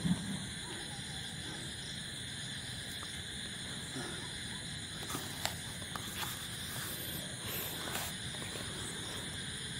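Steady high chirring of night insects, with a few brief rustles and snaps from leaves and branches being pushed through, about halfway in.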